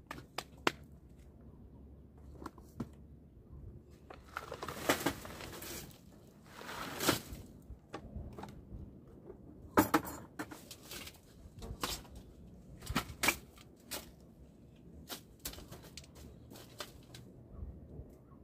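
Gloved hands spreading and patting loose soil in a raised bed: intermittent scraping and rustling with scattered sharp clicks, and louder scrapes about 5, 7 and 10 seconds in.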